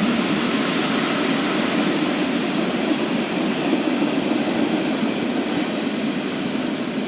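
Norfolk Southern freight train rolling past: steady rumble and rattle of the cars on the rails, slowly getting quieter.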